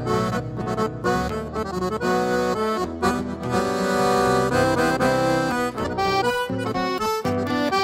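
Background music with an accordion playing the melody over a low accompaniment.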